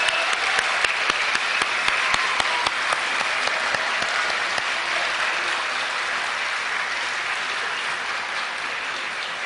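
Audience applauding steadily, a dense patter of many hands clapping that eases off a little toward the end.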